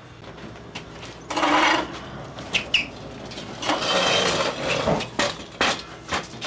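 Wooden garden benches and tables being shoved, lifted and knocked about, giving a run of sharp clattering knocks and scrapes. A loud rushing burst comes about a second and a half in, before the knocking starts.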